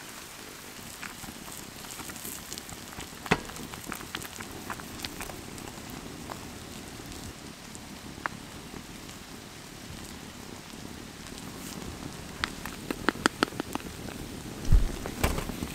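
Steady rain falling, with scattered light clicks throughout. A quick run of taps comes near the end, followed by one dull thump.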